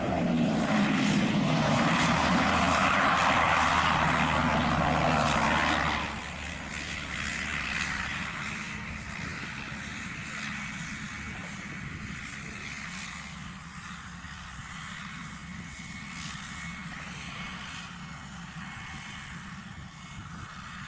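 Cessna 208 Caravan's single turboprop engine and propeller, loud through the first few seconds of the landing roll, then dropping abruptly about six seconds in to a quieter, steady idle as the aircraft rolls on.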